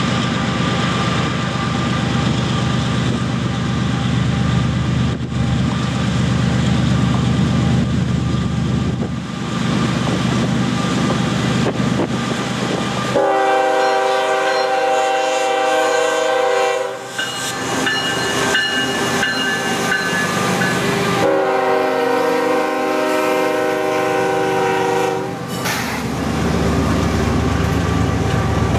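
Diesel freight locomotive approaching with its engines rumbling, then sounding its air horn, a multi-note chord, in two long blasts with a third just starting near the end. Near the end the steel wheels of the freight cars click over the rail joints as they roll by.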